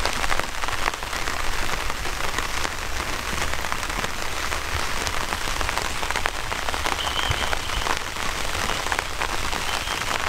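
Steady rain falling, with many separate drop hits heard among the hiss.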